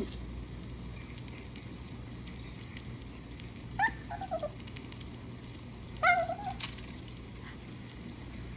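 Maltese puppy whining twice, two short high-pitched whines with a dropping, wavering pitch, the second about two seconds after the first.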